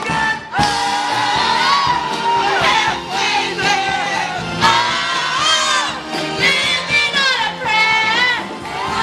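A live party band playing a song with a lead singer, sung vocal lines over the full band.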